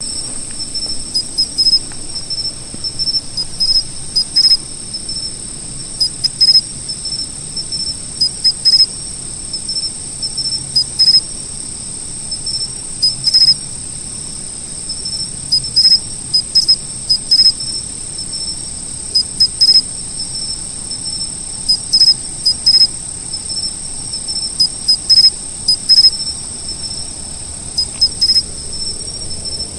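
Insects calling. A steady high-pitched trill runs throughout, while a louder insect chirps in short rapid clusters about every two seconds.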